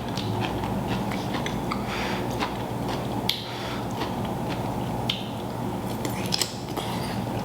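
A person chewing and biting food close to the microphone, with scattered wet clicks, smacks and crunchy crackles over a faint steady low hum.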